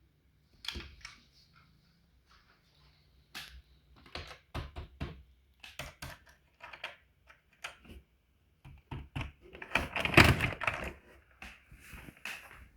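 Toy cars being handled, giving irregular clicks, taps and knocks, with a louder run of clattering about ten seconds in.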